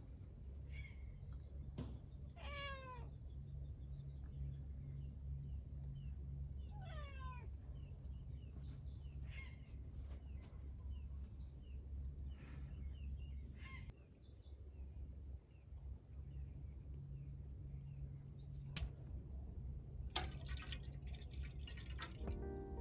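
Birds calling over a steady low hum: two falling, drawn-out calls about 3 and 7 seconds in, with short chirps and high whistles scattered between. There is some clatter near the end.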